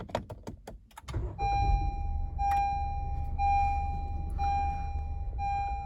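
A quick run of clicks, then the 2018 Honda CR-V's engine starts and runs with a low steady rumble. Over it a dashboard warning chime rings about once a second, five times, each tone lasting nearly a second.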